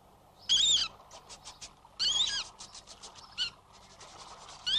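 Rat squeaking and chittering: four short, high, wavering squeaks about a second apart, with quick runs of clicks between them.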